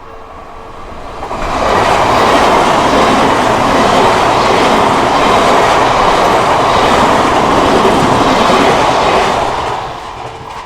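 An Odakyu Odawara Line train passes close over a level crossing. The noise builds over about a second and a half, stays loud for about eight seconds, then fades. At the start the crossing's warning bell can be heard ringing before the train drowns it out.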